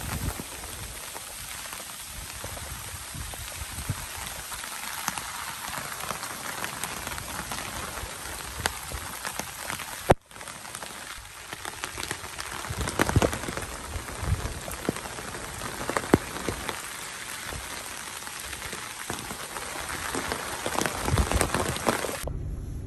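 Steady rain falling on trees and foliage, with many individual drops ticking close by. It drops out for an instant about ten seconds in.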